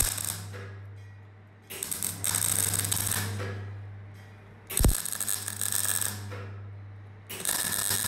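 CO2 (MIG/MAG) welder laying short tack welds: bursts of arc crackle about a second and a half long, every couple of seconds, over a steady low hum. A sharp knock opens the burst about five seconds in.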